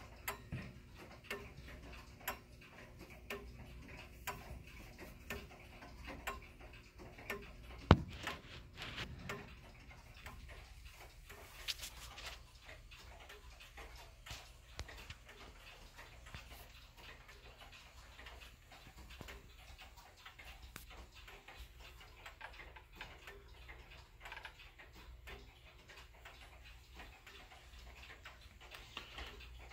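1930s Kienzle 'Round Top' grandfather clock ticking steadily, about once a second, from its pendulum escapement. A single sharp knock, the loudest sound, comes about eight seconds in.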